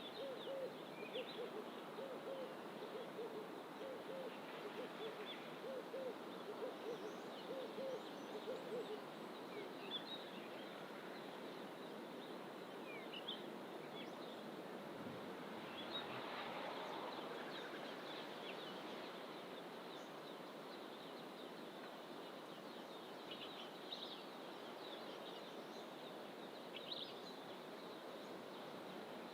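Wild birds calling: a low hooting note repeated in a steady run for about the first third, with scattered short high chirps from other birds throughout, over a steady background hush.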